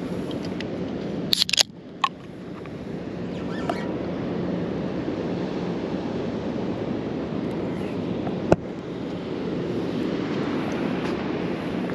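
Steady wind on the microphone over ocean surf, with a quick cluster of sharp clicks about a second and a half in, another click just after, and one more sharp click past the middle.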